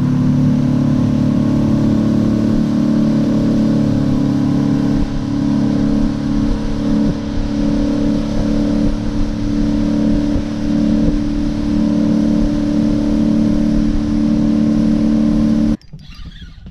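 Outboard motor running steadily at cruising speed, pushing the boat across open water. It cuts off abruptly near the end, leaving much quieter sound.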